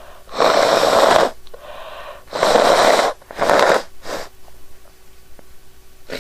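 A woman blowing her nose hard three times, the first two blows about a second each and the third shorter, followed by a weaker fourth blow.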